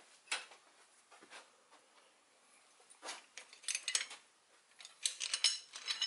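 Steel slide hammer clinking and rattling as it is handled on the vise jaw: a few scattered light clicks, then from about halfway a quicker run of ringing metal clinks near the end.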